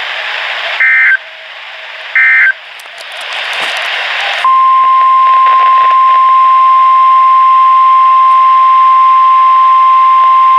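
NOAA Weather Radio receiver: radio static, then two short shrill SAME data bursts about one and two seconds in. About four and a half seconds in, the steady single-pitch 1050 Hz warning alarm tone starts and holds, announcing a new weather alert.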